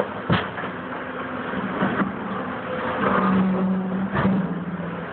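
Hydraulic excavator's diesel engine running, its low hum growing louder for about a second past the middle, while the bucket scrapes and knocks through brick rubble, with a sharp knock just after the start and two more later.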